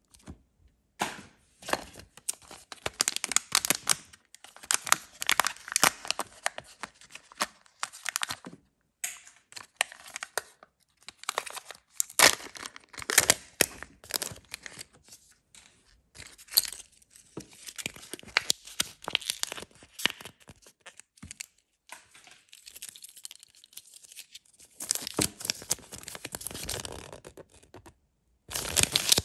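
Thin plastic wrapping and paper of a Kinder Joy toy capsule being crinkled and torn open by hand, with small sharp clicks. The sound comes in irregular bursts with a few short pauses, then the paper instruction leaflet rustles as it is unfolded near the end.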